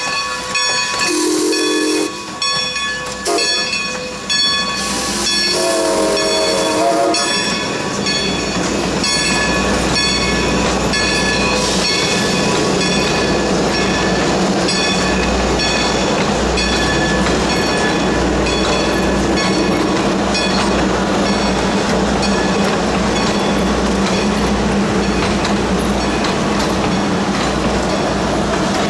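The Reading six-chime steam whistle on 2-10-0 Decapod No. 90 sounds three short blasts, the last one longer, over a bell ringing steadily. From about eight seconds in, the passenger train rolls past with a steady rumble and clickety-clack of wheels over the rail joints.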